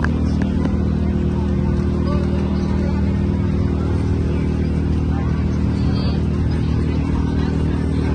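An engine running steadily at one constant speed close by, a deep, even hum that never changes, with faint crowd chatter underneath.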